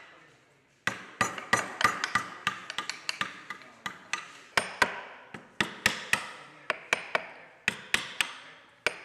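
Chisel being driven into wood for carving: a run of sharp taps, a few a second, with a brief pause about three and a half seconds in.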